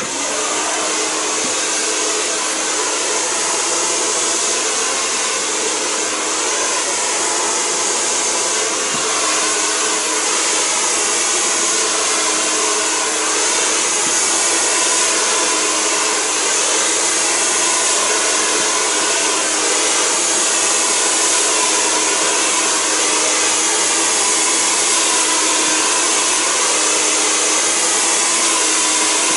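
Handheld hair dryer switching on abruptly and running steadily while it blows through a man's hair: a loud, even rush of air with a steady motor hum in it.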